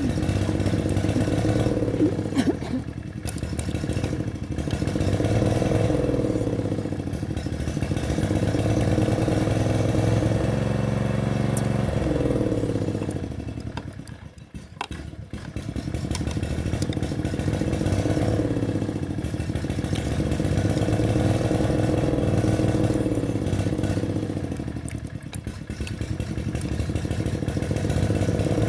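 Small petrol lawn mower engine running during a repair, its speed surging up and down in slow waves every few seconds. About halfway through it sags almost to stalling, then picks up again.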